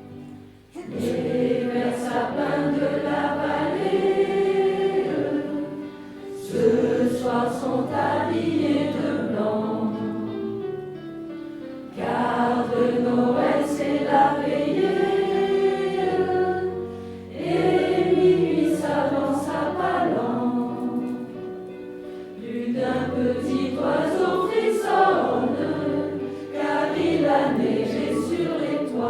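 Choir singing a French Christmas song in phrases that begin about every five to six seconds, over steady held accompanying notes.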